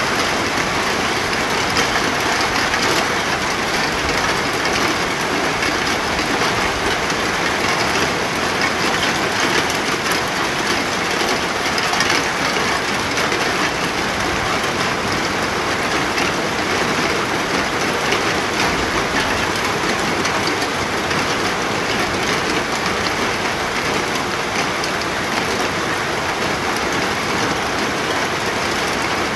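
Steady rain falling: a dense, even hiss that never lets up.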